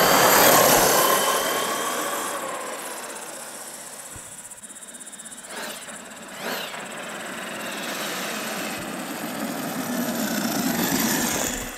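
Arrma Kraton EXB electric RC monster truck racing past at speed in a speed run. The high whine of its electric motor and drivetrain falls in pitch as it passes about half a second in, then fades. It builds again as the truck comes back near the end.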